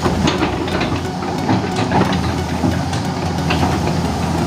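Komatsu hydraulic excavator's diesel engine running under load as the bucket digs into a teak stump and brush, with frequent sharp cracks and knocks as wood and roots break.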